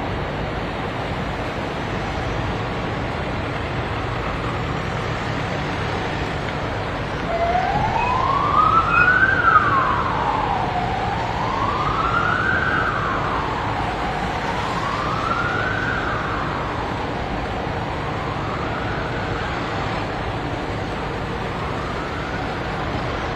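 Cars of a motorcade running past with a steady rumble. From about seven seconds in, a police siren wails, rising and falling slowly about every three seconds. It is loudest at first and fades away near the end.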